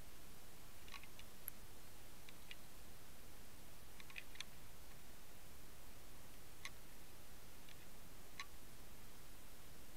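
Steady underwater hiss picked up through an underwater camera's housing, with about a dozen sharp, faint clicks and ticks scattered at uneven intervals: a cluster about a second in, another around four seconds, and single ones later on.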